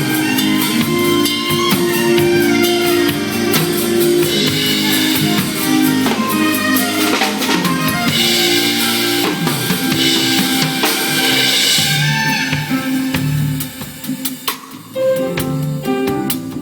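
Drum kit played with band music: kick, snare and crash cymbal hits over pitched bass and melody parts. About twelve seconds in the cymbals stop and the music drops to a quieter, sparser passage carried by bass notes.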